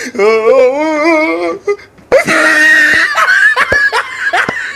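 A person laughing in a long, wavering laugh, then a louder, noisier shriek about two seconds in, followed by short vocal bits and a few sharp clicks.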